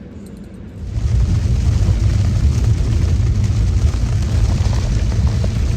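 Loud, steady low rumble and rushing noise of a car on the move, heard from inside, which starts abruptly about a second in.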